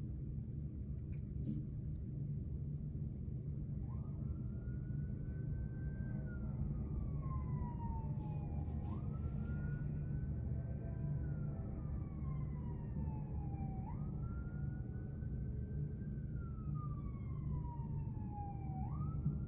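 Emergency vehicle siren wailing from about four seconds in, its pitch rising quickly then falling slowly about every five seconds, over a steady low rumble of city traffic.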